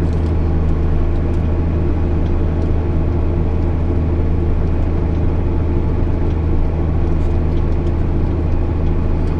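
JCB Fastrac 8250 tractor's diesel engine running steadily, a low even drone with no change in pitch.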